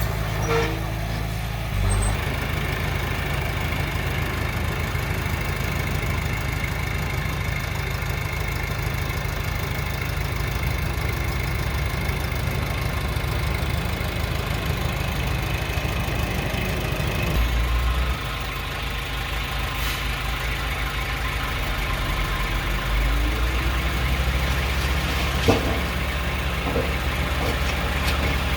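Diesel engine of heavy earthmoving machinery running steadily, its note shifting a few times. A sharp knock comes near the end.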